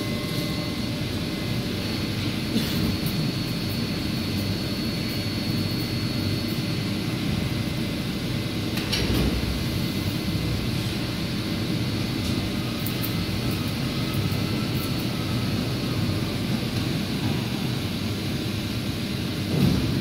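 Steady mechanical drone of a running plastic injection moulding machine with its gantry take-out robot, with faint steady tones and scattered light clicks. There is a short louder noise about nine seconds in.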